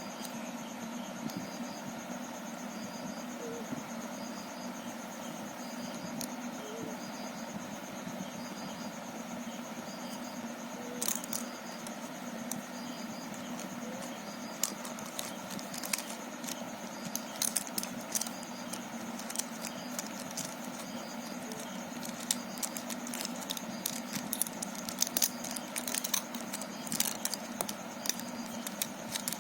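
Hard plastic Rubik's cube pieces clicking and clattering as they are handled, a few clicks at first and then frequent ones through the second half, over a steady background hum.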